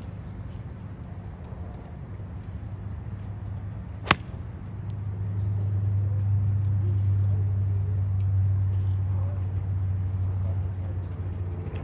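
A single sharp crack of a golf club striking a ball, about four seconds in. Under it runs a low engine drone that swells about a second later and holds steady.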